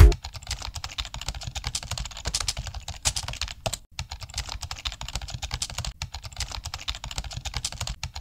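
Keyboard typing: fast, irregular key clicks, with a short break about four seconds in.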